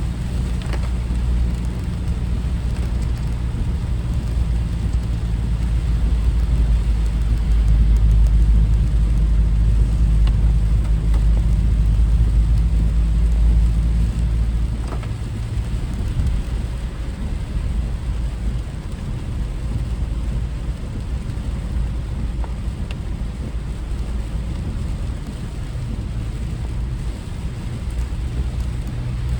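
A car being driven, its road and engine noise a steady low rumble that is loudest in the first half and eases a little about halfway through.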